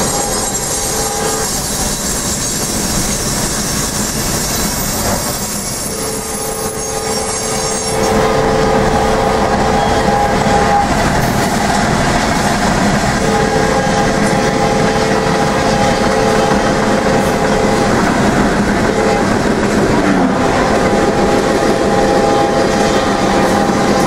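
Norfolk Southern diesel freight locomotive's horn blowing a chord in long blasts, with a short one near the end: the long, long, short, long pattern of a grade-crossing warning. It is heard from inside a pacing car, over the steady rumble and wheel clatter of the train.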